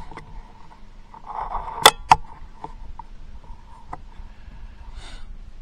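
A .50 calibre AEA Element Max PCP air rifle firing a 235-grain hollow-point slug: one loud sharp report about two seconds in, then a second, fainter sharp crack about a quarter of a second later, the slug striking at the target. A few light clicks follow.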